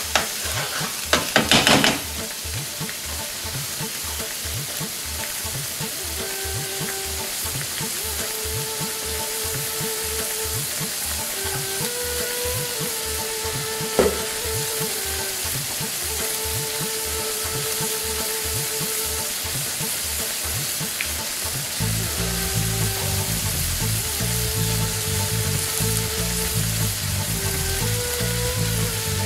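Thick curry sauce simmering in a steel frying pan over a gas burner on turned-down heat, bubbles popping irregularly as it reduces. A short clatter comes about a second and a half in, and a single click near the middle.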